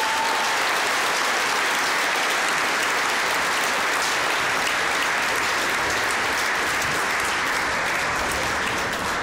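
Large audience applauding: a dense, steady wall of clapping.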